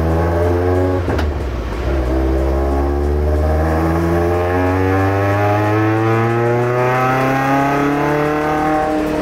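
Mazda MX-5's four-cylinder engine pulling hard, heard from inside the stripped race cabin, its pitch climbing as the revs rise. A little over a second in the note breaks off briefly with a short click at a gear change, then climbs slowly and steadily through the next gear.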